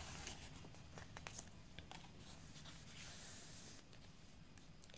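Faint rustling of a picture book's paper page being turned, with a few soft ticks.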